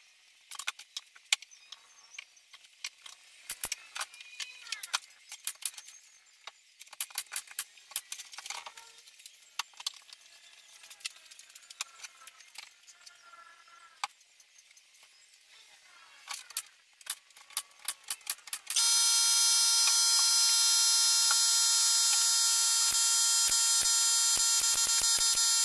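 Light clicks and knocks of wood strips and spring clamps being handled on a plywood panel. About 19 s in, a loud steady high-pitched whine with many overtones starts. Near the end a quick run of sharp shots sounds under it, fitting a pneumatic brad nailer firing.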